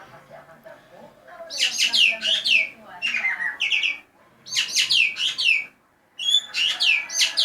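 An ekek geling bird calling in four loud bursts of rapid, falling, chattering notes, with short pauses between the bursts.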